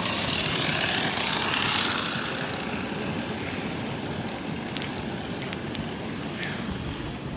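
Steady hiss of riding through traffic in the rain, from wet road and wind noise. A louder whoosh swells and fades over the first two seconds, and a few sharp ticks come later on.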